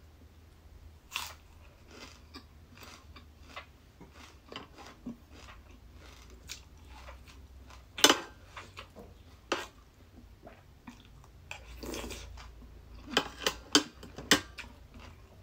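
Close-miked chewing of a mouthful of Thai cucumber salad and raw vegetables, with irregular crisp crunches. The loudest crunch comes about halfway through, and several more come close together near the end.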